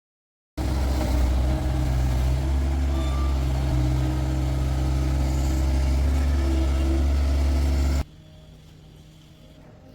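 Bobcat S450 skid-steer loader's diesel engine running at a steady, low pitch. It starts abruptly about half a second in and cuts off sharply near the end, leaving a much fainter low hum.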